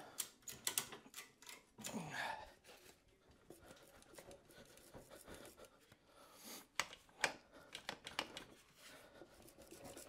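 Faint scattered clicks and light knocks from a BMW K100's aluminium gearbox being wiggled by hand against the engine to work it loose, with a few soft breaths in between.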